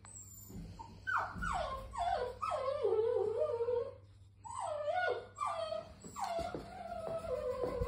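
Puppy whining: a string of high whimpers, each falling in pitch, one after another, with a short break about halfway through.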